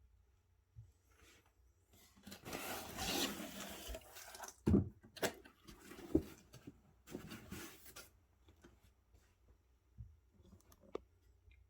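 Packaging being handled and opened: about two seconds of rubbing and scraping, a few soft knocks, another stretch of rubbing, then a light click near the end.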